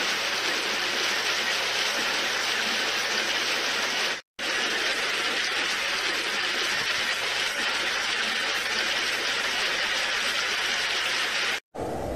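Steady heavy rain, a dense hiss of downpour, briefly cut off a little over four seconds in and then resuming. Near the end it cuts to a lower, duller wind noise.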